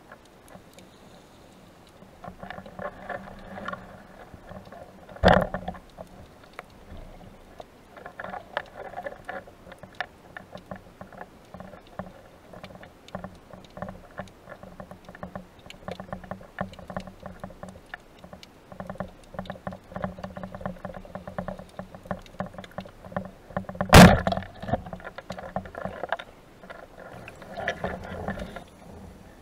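Underwater noise picked up by a speargun-mounted camera as the diver swims: a steady crackle of small clicks with stretches of sloshing, rattling water movement. Two sharp knocks stand out, one about five seconds in and a louder one some twenty seconds later.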